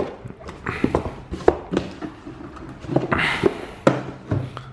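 Cardboard packaging and a keyboard being handled on a desk: scattered knocks and taps, with a brief rustle about a second in and a longer one about three seconds in.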